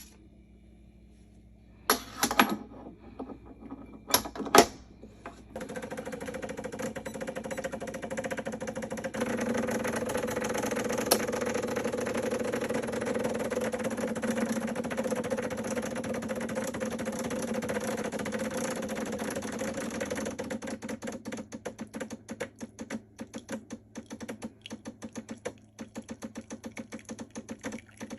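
Two sharp knocks, then a Decent DE1Pro espresso machine running with a steady mechanical hum. About two-thirds of the way through, the hum turns into a fast, irregular ticking pulse.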